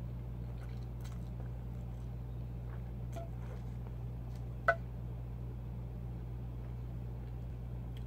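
Quiet chewing and mouth sounds of someone eating spaghetti, with a few soft ticks, over a steady low hum. About halfway through, a single sharp clink with a short ring as the metal fork is set down on the board.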